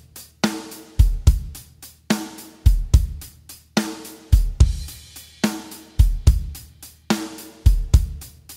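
Drum kit backing track playing the Greek exari 6/8 rhythm at 72 BPM: kick drum, snare and hi-hat in a steady groove, the pattern repeating about every 1.7 seconds.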